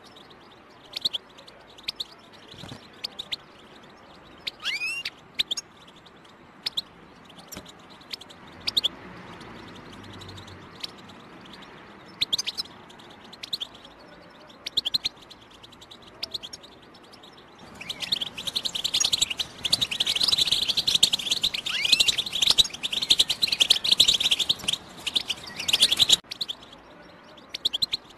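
European goldfinch calling: scattered short chirps, then about eight seconds of rapid, continuous twittering song that stops abruptly shortly before the end.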